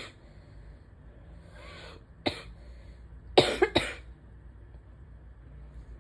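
A person coughing in an allergy-driven asthma flare: one sharp cough about two seconds in, then a quick double cough a second later, the loudest of them.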